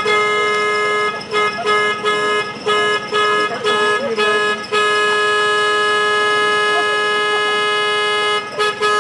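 The horn of a 7¼-inch gauge miniature GP40 diesel locomotive, one steady pitch, sounded as a rapid string of short toots, then one long blast of about four seconds, then two more short toots near the end.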